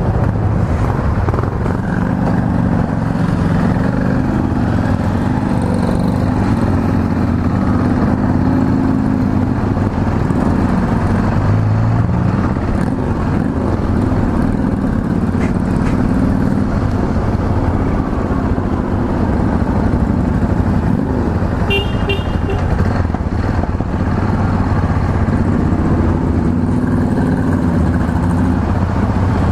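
Yamaha XT660Z Ténéré's 660 cc single-cylinder engine running as the bike rides along, its pitch shifting as it speeds up and changes gear, with wind rush on the microphone. A short horn beep sounds about 22 seconds in.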